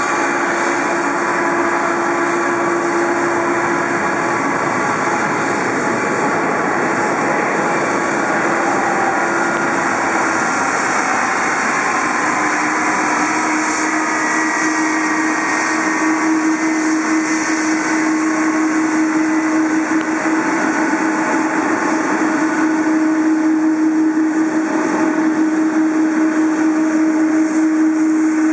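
Boeing 777-200ER's twin jet engines at taxi power as the airliner rolls slowly past close by: a steady whine over a broad rushing roar, growing a little louder in the second half.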